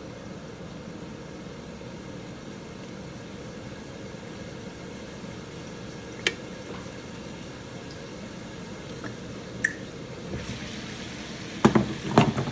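Bacon sizzling quietly under a wooden wok lid, with two sharp pops. Near the end the lid is lifted off with a few loud knocks, and the sizzling comes up louder.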